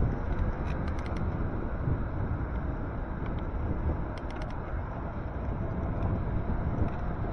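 Wind buffeting the microphone of a moving e-bike, a steady low rumble, with short runs of light clicking from the bike around the first second and again about four seconds in.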